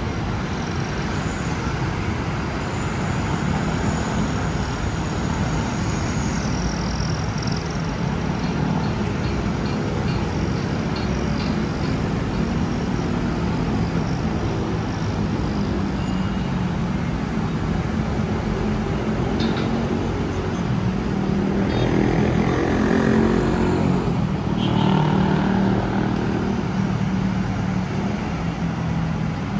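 Steady hum of city road traffic, engines and tyres on a multi-lane street. About three-quarters of the way through, one vehicle's engine note swells and then fades as it passes.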